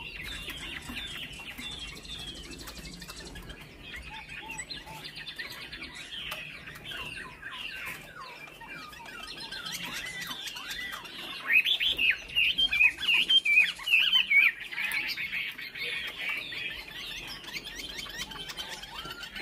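Chinese hwamei singing a long, varied song of rapid chirps and whistled notes, louder and denser for a few seconds starting about eleven seconds in.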